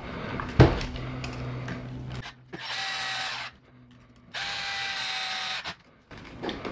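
A sharp knock, then a small electric screwdriver runs twice, about a second each time with a steady whine, driving small screws into a hobby RC car's chassis.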